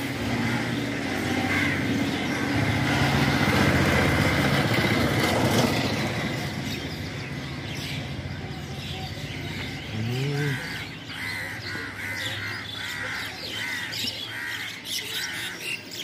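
A motor vehicle's engine grows louder as it passes and then fades, followed by crows cawing over and over, about once a second.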